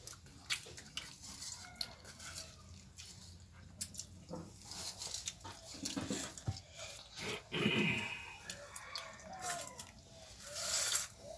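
Hand-eating of pakhal (rice soaked in water) from steel bowls: fingers mixing and scooping the wet rice, with light clinks and knocks against the bowls. A few short whining calls come in among them.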